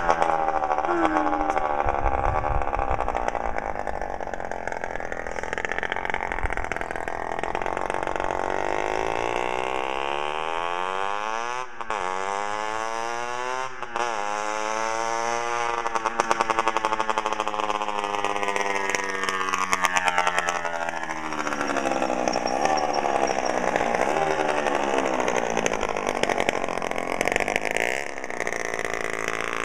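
Derbi Senda DRD 50 SM's 50 cc two-stroke single-cylinder engine running with no exhaust fitted, revving up and down as the bike rides. Its pitch rises and falls repeatedly, with two short throttle cuts about twelve and fourteen seconds in.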